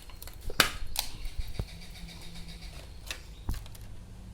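Hands handling a plastic toy set and its taped packaging: a few scattered clicks and knocks, the sharpest about half a second in, over a low steady hum.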